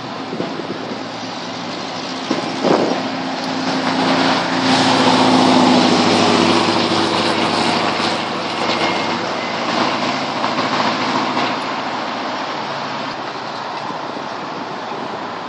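Cars driving past on a road. An engine's low drone swells to its loudest about five seconds in as a car passes close, then fades back into the traffic noise. A short sharp knock comes about two and a half seconds in.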